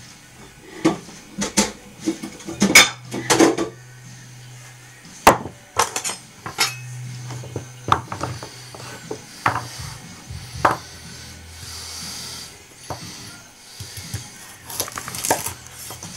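Ikea Slitbar VG10 kitchen knife's steel blade clinking and scraping in irregular short strokes, some louder than others.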